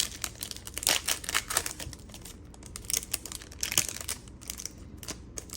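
Plastic wrapper of a trading-card pack being crinkled and torn open by hand, a run of sharp crackles and clicks that comes in two clusters.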